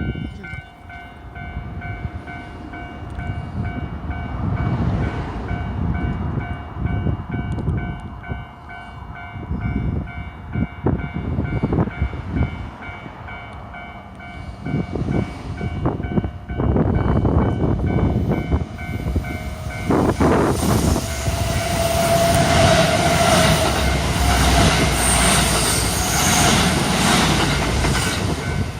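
Japanese railway level-crossing warning bell ringing steadily with an even, repeating beat. From a little past halfway a train passes over the crossing, its wheels clacking on the rail joints, loudest in the last third.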